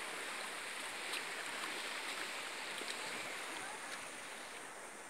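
Floodwater rushing steadily, a continuous hiss with a few faint ticks, easing off a little near the end.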